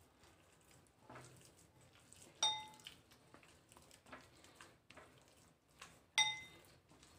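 A hand mixes a thick batter in a glass bowl with faint wet mixing sounds. Twice, about two and a half seconds in and again near six seconds, the glass bowl rings with a clear, briefly ringing ping as the bangle on the mixing wrist knocks its rim.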